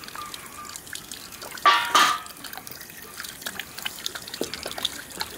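Water poured from a steel plate into a black pan, loudest about two seconds in. This is followed by hands splashing and rubbing in the water, with scattered drips and small splashes.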